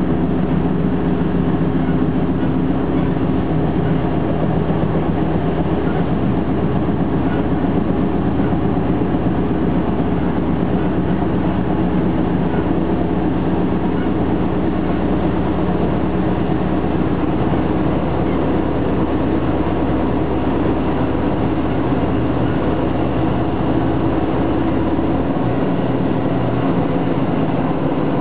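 Steady running noise inside a DB Class 628.2 diesel railcar travelling at speed: a continuous drone from its diesel engine with the rumble of wheels on rail. The deepest part of the drone turns uneven near the end.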